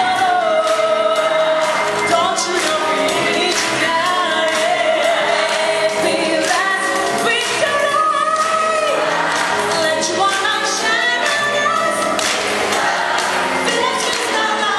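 A large gospel choir singing with accompaniment, the voices holding long notes over a steady beat.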